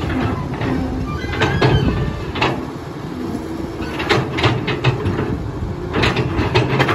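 CAT tracked hydraulic excavator running, its diesel engine making a steady low rumble. Irregular metal clanks and knocks from the bucket and boom linkage come as it scrapes and pulls soil, several in clusters about a second in, around four to five seconds in, and near the end.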